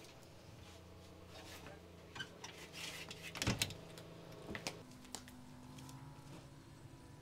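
Metal-framed glass door being pulled shut: a cluster of handle and latch clicks, with one solid knock as it closes about three and a half seconds in, then a few lighter clicks.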